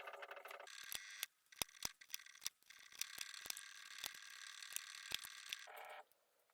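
Irregular sharp plastic clicks and light clatter over a faint hiss, like keyboard keycaps being handled and snapped on or off.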